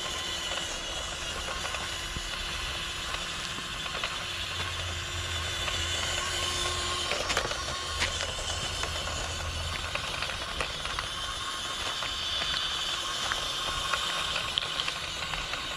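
A 1/18-scale FMS Toyota Land Cruiser LC80 RC crawler driving over loose gravel: its small electric drivetrain runs with a steady faint whine over a continuous hiss, and stones click under the tyres.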